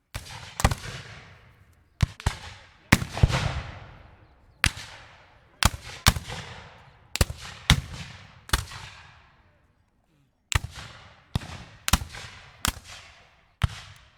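A string of sharp, loud shot-like bangs at irregular intervals, some fifteen in all, sometimes two close together, each trailing off in a long echoing tail. There is a pause of about a second roughly two-thirds of the way through.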